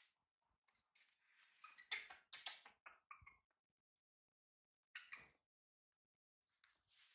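Near silence with a few faint, short clicks and rustles: a cluster about two to three and a half seconds in and one more about five seconds in.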